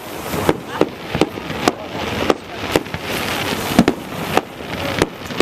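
Fireworks display: a rapid run of sharp bangs, about one to two a second, over continuous crackling.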